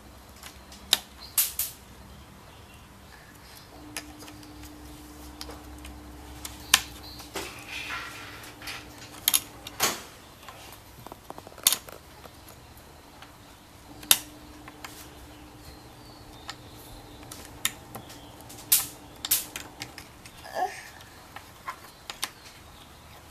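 Jigsaw puzzle pieces being handled and set down, giving scattered, irregular light clicks and taps, with a faint steady hum now and then.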